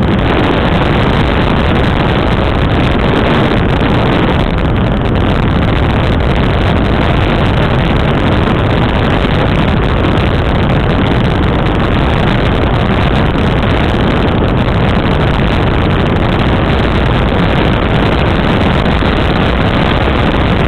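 Small aircraft in flight: steady engine drone mixed with wind rushing over a camera mounted outside by the landing-gear wheel.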